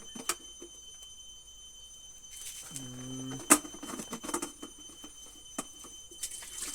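Scattered clicks and knocks of an electric kettle being handled on a workbench, with one sharp click about three and a half seconds in, over a faint steady high whine.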